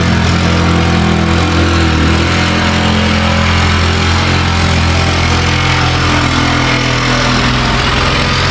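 Cordless reciprocating saw running steadily, its blade cutting through a wood-panelled wall.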